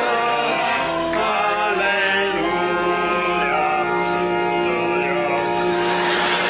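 Music with sung voices: choir-like singing over instruments, long held notes that change about every second.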